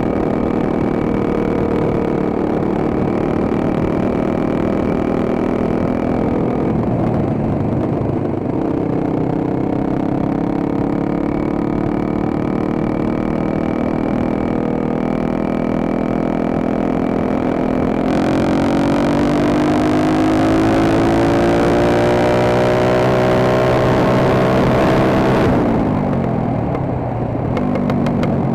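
Dirt bike engine running while being ridden, its pitch steady at first and dipping briefly about a quarter of the way in. Past the halfway point it climbs steadily for several seconds as the bike accelerates, with a rushing hiss over it, then drops sharply near the end as the throttle is closed.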